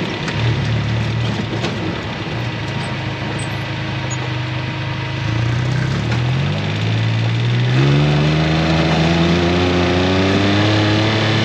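Vehicle engine running at low speed, then accelerating: its pitch climbs about halfway through and rises again, louder, near the end.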